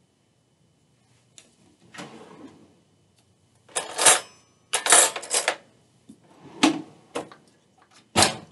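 A kitchen utensil and measuring cup knocking and scraping against a stainless steel saucepan, several separate clattering strikes with the loudest about four and five seconds in, as sticky honey is scraped out of the cup into the pot.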